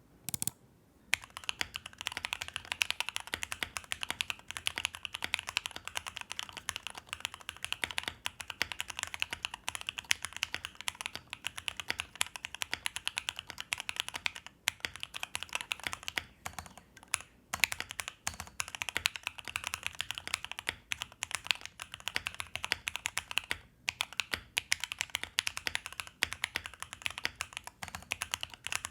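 Mechanical keyboard being typed on at a fast, steady pace: dense keystroke clacks with a few brief pauses partway through.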